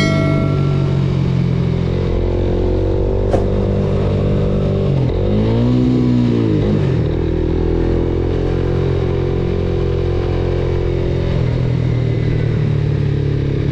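Motorcycle engine running under way, a steady hum whose pitch rises and falls once between about five and seven seconds in. There is a single sharp click about three seconds in.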